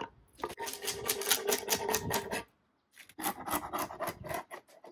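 Old veneer crackling and scraping as a knife blade prises it off the underside of a wooden rocking-chair seat. There are two runs of rapid crackling with a short pause about halfway through.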